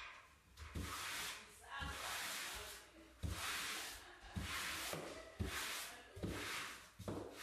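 Handheld wallpaper smoothing tool swiped over pre-pasted vinyl wallpaper on a ceiling, pressing the paper flat. About seven rubbing swishes, roughly one a second.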